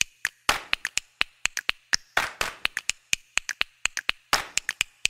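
Percussive backing track of claps, finger snaps and tapping clicks in a steady rhythm, a heavier clap about every two seconds with lighter, slightly pitched clicks between.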